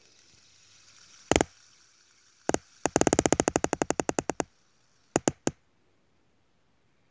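Red plastic fidget spinner knocking against the camera: a couple of single sharp clacks, then a rapid run of clacks, about ten a second for a second and a half, as the spinning arms strike it, then three last quick knocks.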